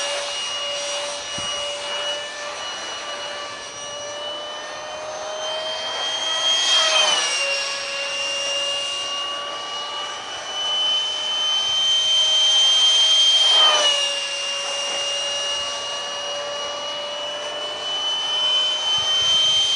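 Electric ducted fan of a foam RC jet (Detrum 70mm EDF) whining at high throttle in flight. The whine swells and then drops in pitch twice, about 7 and 14 seconds in, as the jet flies past.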